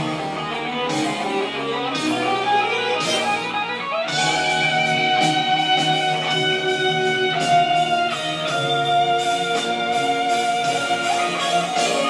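Electric guitar playing with an orchestra behind it, the music growing fuller with more sustained notes about four seconds in.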